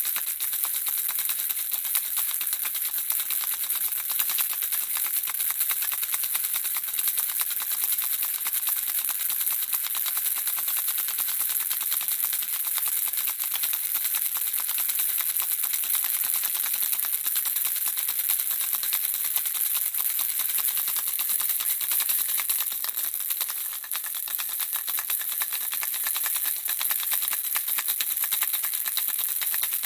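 Handheld baby rattle shaken continuously, the small beads inside clattering in a fast, even stream of tiny clicks, easing off for a moment about two-thirds of the way through.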